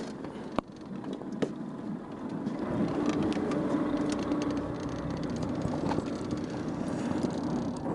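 A small boat's engine running steadily, growing louder about three seconds in, with a few sharp knocks in the first second and a half.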